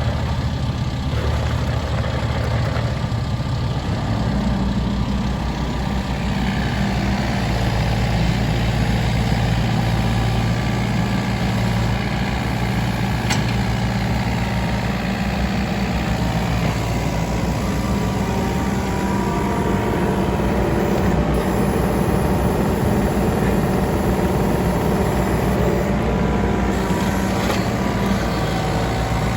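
Takeuchi TB225 mini excavator's diesel engine running steadily, its note shifting a few times.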